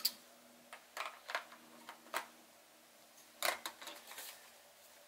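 Light plastic clicks and taps, scattered and irregular, with a small cluster about three and a half seconds in. They come from an Instax Square film pack being handled and fitted into the back of a Fujifilm Instax Share SP-3 printer.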